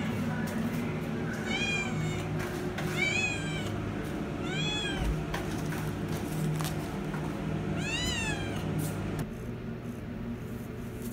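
A cat meowing in a shelter cage, about four drawn-out meows, each rising and then falling in pitch.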